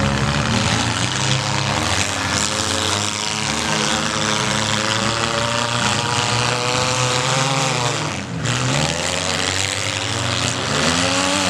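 Several compact-car engines running and revving at once during a demolition derby, their pitches rising and falling over one another over a dense wash of noise, with a brief dip about eight seconds in.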